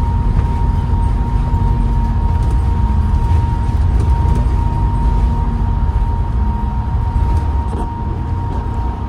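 Diesel bus heard from on board, its engine and driveline rumbling steadily under way, with a constant high whine, the turbo whine, running through and a lower whine that fades in and out. The bus has a ZF automatic gearbox that the uploader calls knackered.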